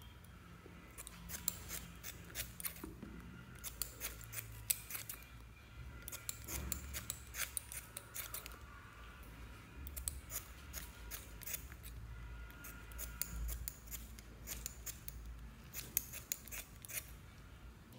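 Metal scissors snipping soft makeup sponges into small pieces: runs of crisp, quick snips with short pauses between them.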